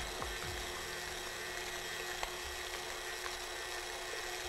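Steady faint mechanical hum with a constant whine running under it, and a few faint ticks.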